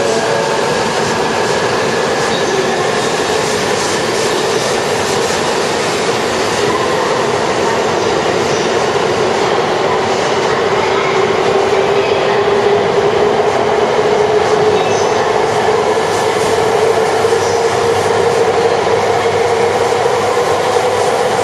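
A Shinkansen train, an E2 series set coupled to an E3 series, running past a platform in an underground station: a steady loud rumble of wheels and air with a motor whine that slowly sinks in pitch and then climbs again near the end.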